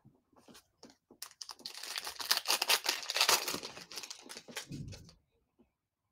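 Foil trading-card pack being torn open by hand, with a run of crinkling and tearing crackles.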